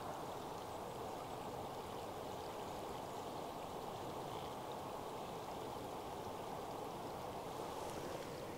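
Steady, low rush of fast-flowing river water, even and unbroken.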